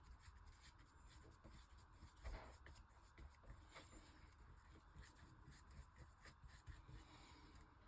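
Faint, irregular strokes of a paintbrush spreading Mod Podge over paper, with one slightly louder stroke about two and a half seconds in.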